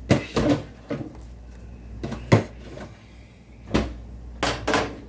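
A series of sharp knocks and clatters in a kitchen, like cupboard doors and cookware being handled, the loudest near the start and a little past two seconds in.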